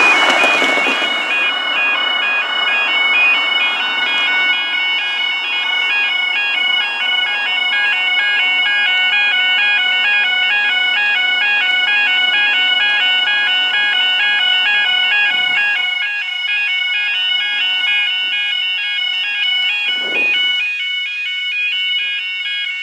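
Level crossing warning alarm sounding: a two-tone electronic warble that alternates rapidly and repeats steadily. A broad rushing noise runs under it for the first few seconds.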